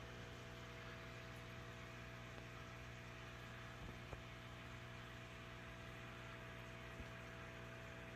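Faint steady electrical hum, several fixed pitches over a background hiss, with a few faint ticks.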